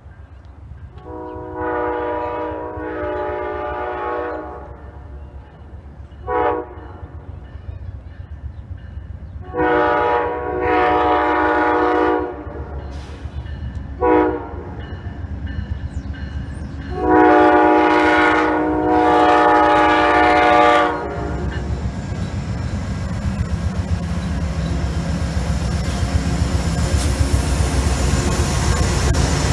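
Amtrak GE Genesis diesel locomotive sounding its horn as it approaches: a chord of several tones in three long blasts with a short toot between each. The horn stops after about 21 seconds, and the engine and the wheels on the rails grow steadily louder as the locomotive passes close.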